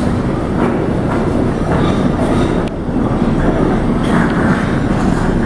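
New York City Subway R142 train pulling into an underground station: a loud, steady rumble of steel wheels on rail with rail-joint clacks and a brief high wheel squeal about two seconds in.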